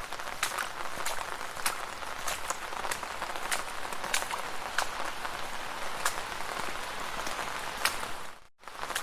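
Rain falling on a street: a steady hiss with many single drops ticking sharply close by. The sound cuts out for a moment near the end.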